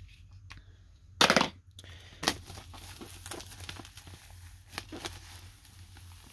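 Plastic shrink wrap being torn and peeled off a vinyl record jacket by hand, crinkling. A loud rip comes about a second in, a sharp crack follows, then steady crackling as the wrap is pulled away.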